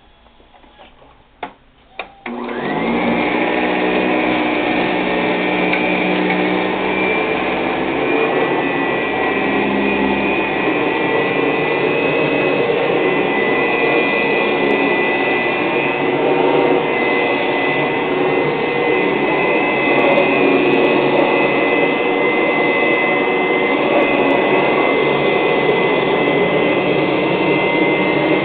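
Eureka 1934A fan-first upright vacuum cleaner: two clicks, then about two seconds in the motor starts and runs steadily with a deep throaty sound and a steady high whine, as it cleans a rug. The brush roll taps the carpet and debris rushes up through the bag's fill tube.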